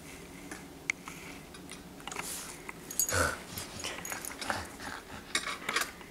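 A dog playing with a child on carpet: rustling and scuffing with scattered small clicks, and a short dog vocal sound about three seconds in.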